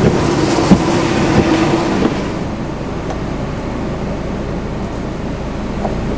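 Strong hurricane outer-band wind blowing hard and buffeting the microphone, with a steady whistle for the first two seconds. About two seconds in, the sound drops to a quieter, duller rush of wind.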